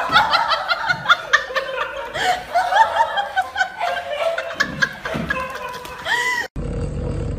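High-pitched laughing in quick repeated bursts, about three or four a second. It cuts off suddenly near the end, and a steady low hum follows.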